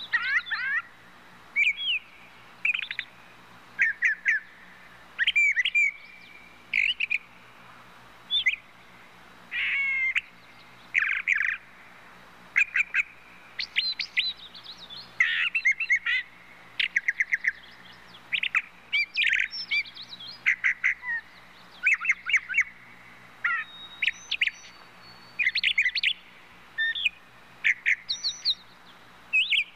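Birds chirping: short bright chirps and trills in quick groups, about one group every second or so, over a faint steady low hum.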